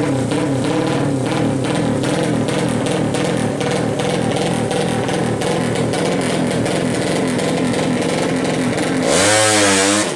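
Engine of a 200cc drag-racing motorcycle held at high revs on the start line, its note wavering, then accelerating hard about nine seconds in, where it is loudest and the pitch swings up and down as the bike goes by.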